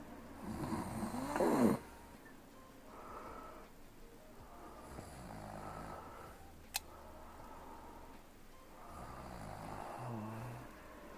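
A sleeping young woman snoring with nasal, snuffling breaths, a loud pitched snore about a second in and softer ones every few seconds after. A single sharp click comes near the middle.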